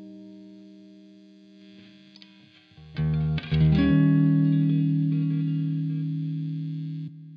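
Fender Stratocaster electric guitar played through an amplifier and the Universal Audio OX Box's speaker and microphone simulation. A held note fades away, then a quick run of picked notes about three seconds in lands on a loud sustained note that rings for about three seconds before it is muted.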